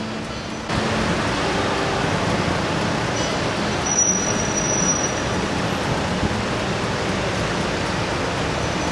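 Steady outdoor ambient noise, an even hiss with no distinct events, that jumps up abruptly a little under a second in and holds level.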